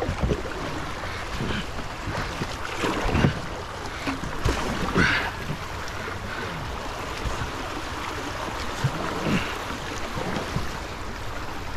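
A canoe being pushed past a log in a river: irregular knocks and scrapes of the hull and paddles against wood, with water sloshing and rushing around the boat. The loudest knocks come around three and five seconds in.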